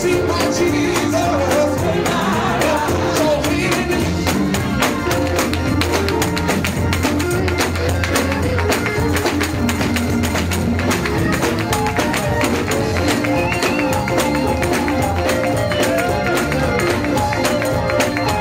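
Fast, driving Pentecostal gospel music from a live church band, with a steady rapid tambourine-like beat over a moving bass line.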